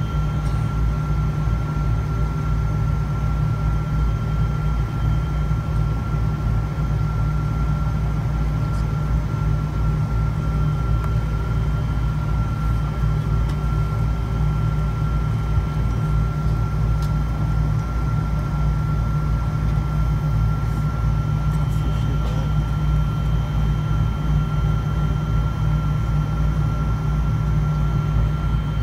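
Steady cabin noise inside a Boeing 777-300 with Rolls-Royce Trent 892 engines, taxiing after landing: a low rumble with a steady high whine over it.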